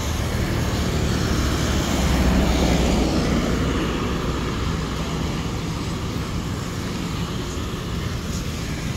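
Road traffic on the adjoining street: a motor vehicle passing, growing louder to a peak about two to three seconds in and then fading, over a steady low rumble.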